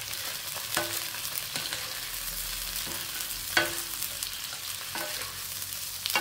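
Shell-on shrimp sizzling in hot olive oil in a wok while a spatula stirs and turns them, with several sharp knocks and scrapes of the spatula against the pan, the loudest about three and a half seconds in. The shrimp are cooking through and turning red.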